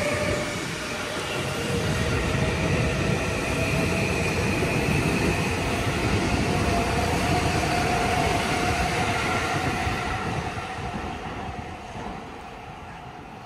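A train passing close by: a steady rumble of wheels on rails with a faint whine over it. It starts suddenly and fades over the last few seconds.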